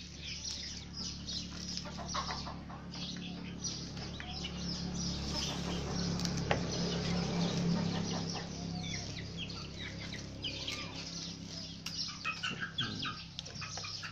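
Chickens clucking, with frequent short high chirps, over a steady low hum.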